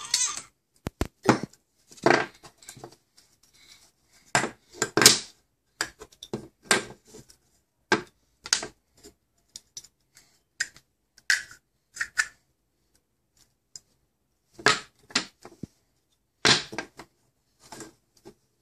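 Large plastic toy building bricks clacking and knocking together as a toddler handles them and presses them on and off each other, in irregular clicks with short pauses between.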